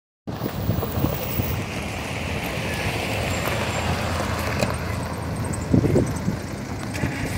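Outdoor street ambience: a steady low rumble of wind on the microphone with a vehicle engine running nearby.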